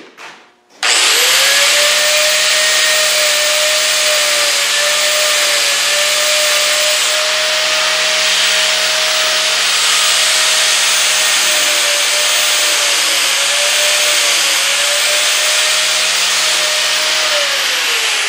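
Electric angle grinder spinning up about a second in and running steadily at high speed as it grinds down protruding dowel pins on the engine block, its pitch dipping slightly now and then under load, then winding down near the end.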